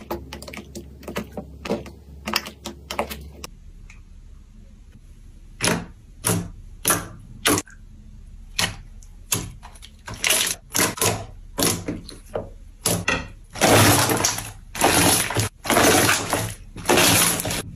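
Slime being squeezed and poked by hand, giving a series of sharp crackling pops. They come about one or two a second at first, then faster and louder in the second half.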